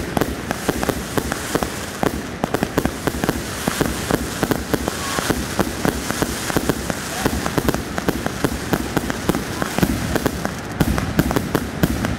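Aerial fireworks firing in a dense barrage: a continuous crackle of rapid pops and bangs from launches and bursts overhead, with no pause.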